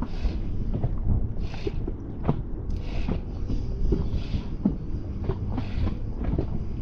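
Wind buffeting the microphone and choppy water lapping against the side of a small aluminium boat, with a short splash about every one and a half seconds and light knocks against the hull.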